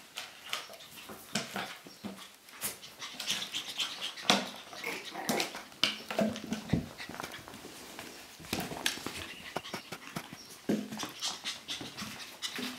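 Maltese puppies whimpering and panting, among many small clicks and taps throughout, with a few short cries around the middle.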